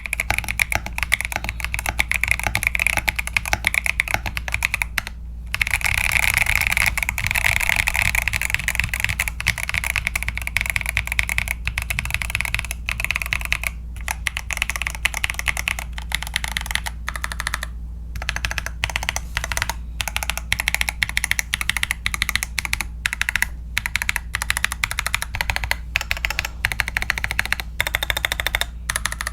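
Fast, continuous typing on a mechanical keyboard with tactile switches, FSA PBT doubleshot keycaps and a polycarbonate plate: a dense clatter of key presses broken by a few brief pauses.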